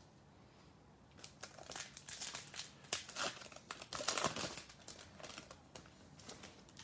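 Plastic wrapper of an NBA Hoops trading-card pack crinkling and tearing as it is opened by hand, starting about a second in and thinning out near the end.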